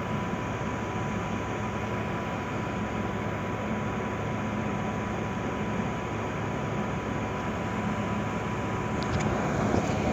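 Steady low rumble of ship's engines running while the vessel manoeuvres alongside, with a faint steady high tone over the first two-thirds and a few light clicks near the end.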